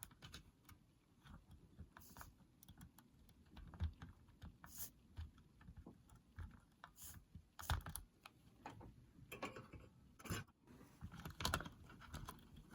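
Faint, irregular small clicks and taps from tools and the Walkman's plastic parts being handled while the wires are desoldered from its circuit board, with a few sharper clicks in the second half.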